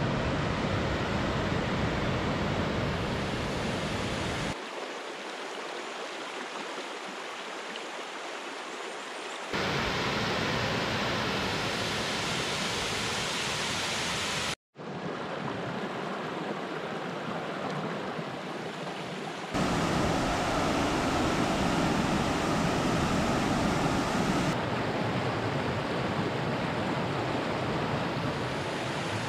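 Rushing water from waterfalls and a stream, heard in a run of short clips that change abruptly about every five seconds, with a brief dropout to silence about halfway through.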